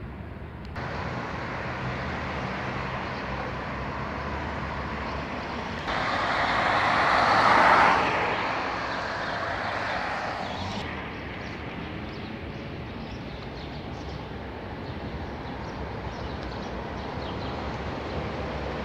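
Street traffic noise with a car passing close by: its tyre and engine noise swells about six seconds in, peaks near eight seconds and fades away over the next few seconds, over a steady low hum of traffic.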